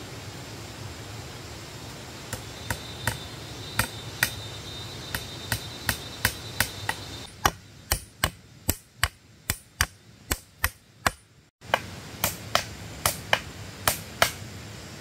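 Hammer knocking on bamboo: a run of sharp, hard knocks, sparse at first, then a steady pace of about two to three a second, with a last few spaced blows near the end.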